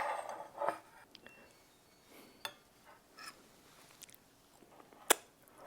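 Soft, close-miked eating sounds of strawberry cream cake being chewed, with a few light clicks. One sharp click about five seconds in is the loudest sound.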